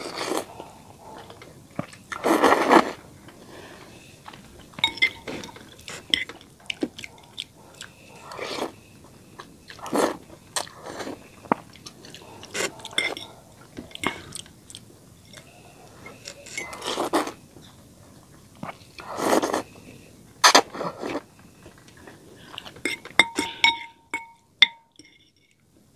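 Close-up eating of noodles in gravy: irregular wet slurps and chewing, with a few sharp taps of the fork on the glass bowl near the end.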